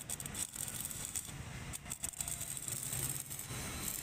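Electric arc (stick) welding on a motorcycle's side-stand mount: the arc crackles and sputters irregularly with brief breaks, over a low steady hum.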